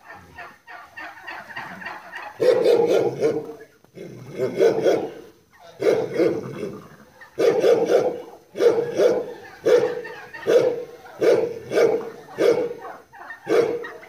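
An animal calling over and over, about one loud call a second, starting a couple of seconds in after a quieter stretch.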